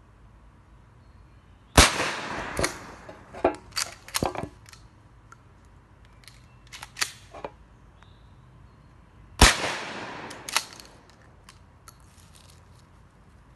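Two gunshots from a long gun fired outdoors, about 1.8 s and 9.4 s in, each with a short echoing tail. Between them come several sharper, quieter clicks, likely the gun's action being worked between shots.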